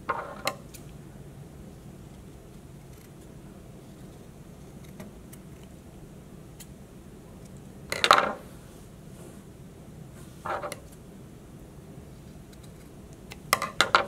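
Hands working at a needle-felting table: quiet room tone broken by a handful of brief small clicks and light knocks. The loudest comes about eight seconds in, with a quick cluster near the end.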